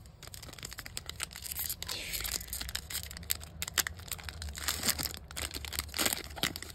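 A Panini Mosaic NFL trading-card pack's foil wrapper being torn open and crinkled by hand: a dense run of crackling tears and rustles.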